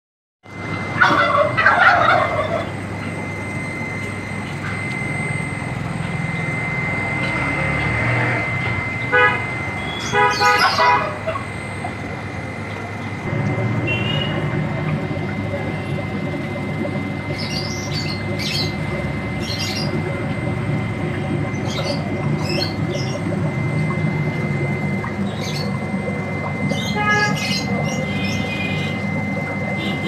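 Steady hum and hiss of an aquarium's running air pump and aeration, with a thin constant high tone. It is broken by a few short, louder pitched sounds near the start and about ten seconds in, and by scattered light clicks later on.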